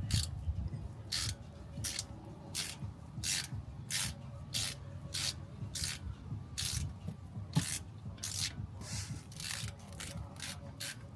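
Ratchet wrench working in repeated short rasping strokes, about one every half second and quicker near the end, as the drain plug of a differential is backed out.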